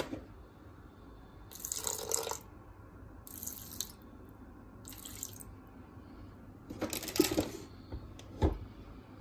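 Water poured from a plastic jug into a Thermomix's steel mixing bowl in four short pours, followed by a single thump near the end.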